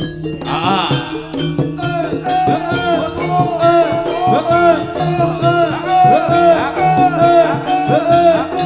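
Live Javanese jaranan ensemble music from gongs, kettle gongs and drums. About two seconds in, a melody line comes in that swoops up and down in pitch in short repeated phrases.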